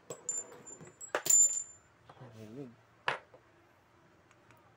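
Small metal parts of a chain tensioner kit (machined aluminium blocks, steel screws and pins) clinking against each other and the bench as they are handled. A bright ringing clink about a second in is the loudest, and a sharper single click comes about three seconds in.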